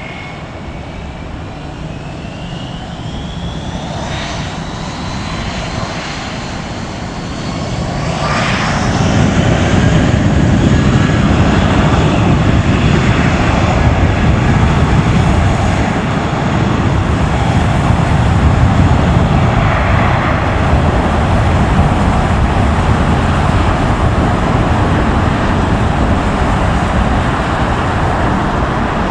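Jet airliner engines: a whine that rises in pitch over the first several seconds, then a loud, steady roar with a deep rumble from about eight seconds in.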